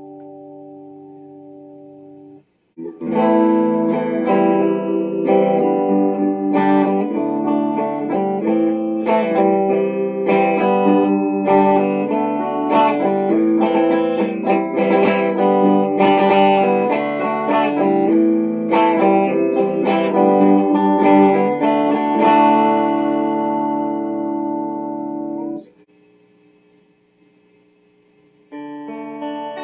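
Les Paul Junior-style electric guitar with a fabric top being played as a tone sample. A ringing chord is cut short, then comes a long passage of picked single notes and chords. It settles onto a held chord that stops suddenly, and after a brief pause a new chord is struck near the end.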